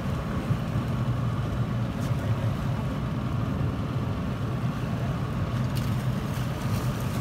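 A boat's motor running steadily, a low hum, under wind and water noise.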